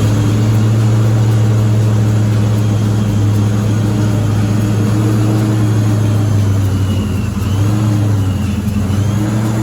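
Fox-body Mustang's 5.0 V8 idling steadily, with a slight dip and recovery in pitch near the end.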